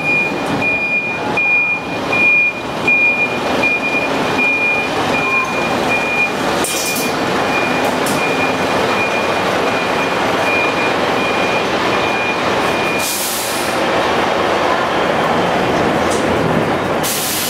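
Scania P320 fire engine manoeuvring in the station bay with its reversing alarm beeping in a steady, evenly spaced pulse that stops about 13 seconds in, over the running diesel engine. Short loud bursts of air hiss, typical of the truck's air brakes, come about 7 seconds in, again as the beeping stops, and near the end.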